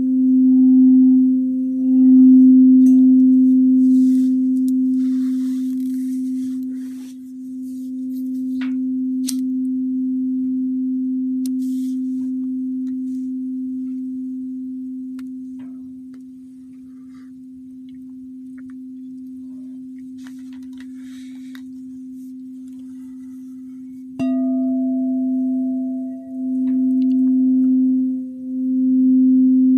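Singing bowl ringing one steady low tone with fainter higher overtones, wavering in loudness as it sings. It slowly fades, then is struck again about four-fifths of the way through and rings louder.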